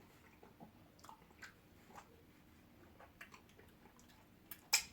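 Faint eating sounds at a meal of fufu and okra soup: soft chewing and small clicks, with a sharper click about four and a half seconds in.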